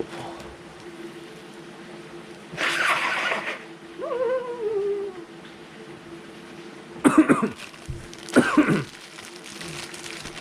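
A man coughing and clearing his throat several times: a rough burst, a short wavering hum-like vocal sound, then two sharp coughs near the end. A steady low hum runs underneath.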